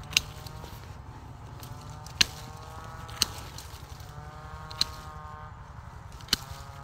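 Pruning shears snipping through thin vine stems: five sharp snips, a second or two apart, over a faint steady low hum.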